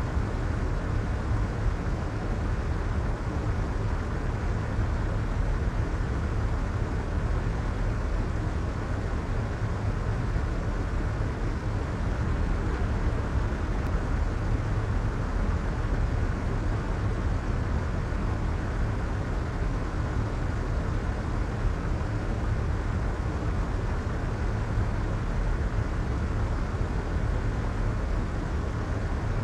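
Soft white noise: a steady, even hiss with no rhythm or events, weighted toward the low end and falling away in the highs.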